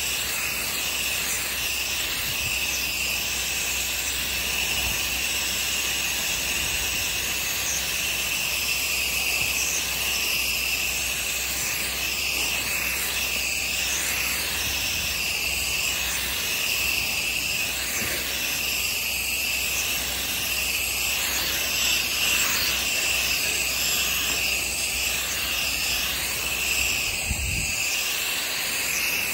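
Pressure-washer wand spraying a wide fan of water onto wet deck boards: a steady hiss of spray striking the wood, wavering slightly as the fan is swept across the boards.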